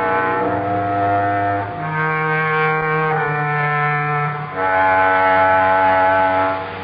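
Closing theme music of the radio drama: slow held chords that change every second or two over a low bass note.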